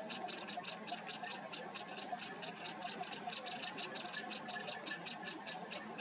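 A rapid, even train of high chirps, about seven a second, running without a break.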